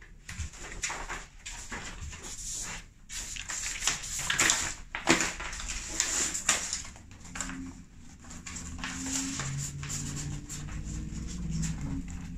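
Paper and packaging rustling and crinkling in irregular bursts as a large poster and boxed items are handled.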